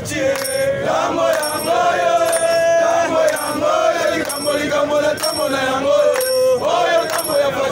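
A group of men chanting a song together in unison, with long held notes.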